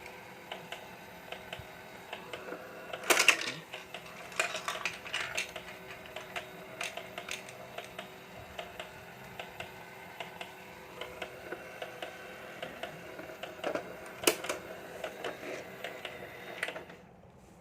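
Battery-powered Thomas & Friends Crane Ball toy set running: a small motor hums steadily under light plastic clicking and rattling of the balls and track. There are sharper plastic clacks about three seconds in and again near the end. The running sound stops shortly before the end.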